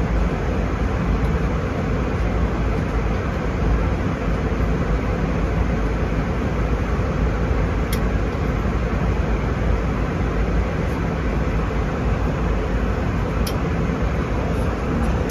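Steady cabin roar of an Airbus A320 in cruise: engine and airflow noise heard from inside the passenger cabin, deepest in the low end. Two faint clicks come about halfway through and again near the end.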